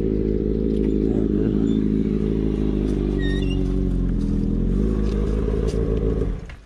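Motorcycle engine idling steadily, then cutting off suddenly near the end.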